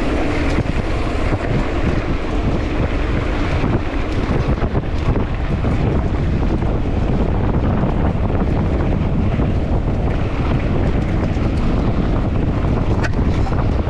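Wind buffeting a mountain-bike rider's small camera microphone at riding speed. It makes a steady, loud rushing rumble, with scattered small clicks and rattles from the bike over rough ground.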